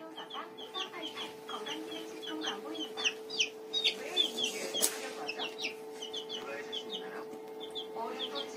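A young chick peeping: short, high, falling peeps, a few each second, over a steady low hum.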